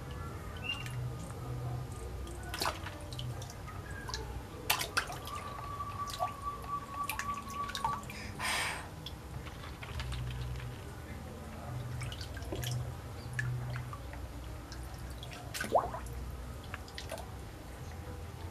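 Water dripping and splashing lightly in a shallow inflatable paddling pool as a child moves a plastic toy through the water among floating plastic balls, with scattered small clicks and a short splash about eight seconds in.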